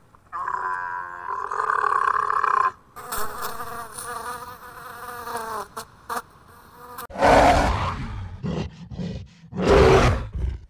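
Buzzing of flying insects with a stacked whine, in two stretches. About seven seconds in, two loud, rough calls from a large animal follow, with short grunting pulses between them.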